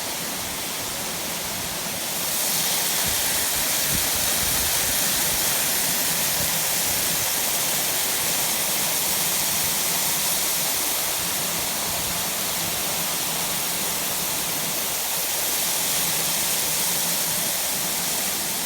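Waterfall: steady rushing and splashing water, which grows louder about two seconds in.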